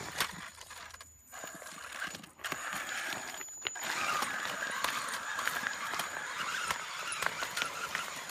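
A 1/10-scale Axial Wraith RC rock crawler's electric motor and geared drivetrain whirring as it crawls over loose rocks, with stones clicking and crunching under the tyres. The whirr breaks off briefly a few times in the first half, then runs steadily.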